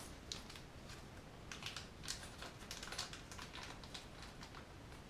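Faint, irregular small clicks and taps of a standard metal fishplate (rail joiner) being worked onto the end of an O gauge Peco rail.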